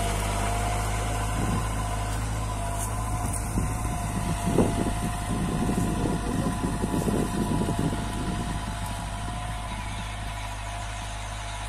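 Kubota MU4501 tractor's four-cylinder diesel engine running steadily under load while pulling a plough through the soil, growing gradually fainter near the end. Halfway through there is a thump amid some irregular low rumbling.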